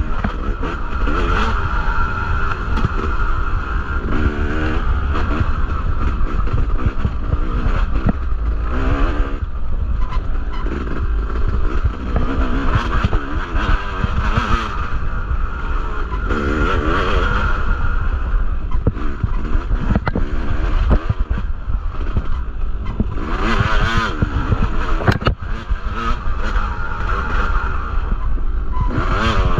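Yamaha two-stroke dirt bike engine under race throttle, its pitch climbing and falling again and again as the throttle is opened and shut. A steady low rumble runs underneath, with a few sharp knocks, the loudest about 25 seconds in.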